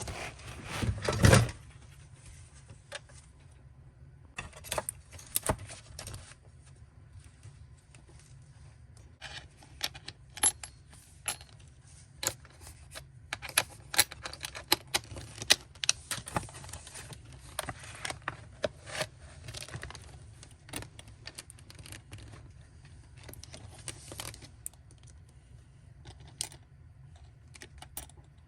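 Items from an unboxed package being handled: a loud clatter about a second in, then scattered light clicks, taps and small rattles.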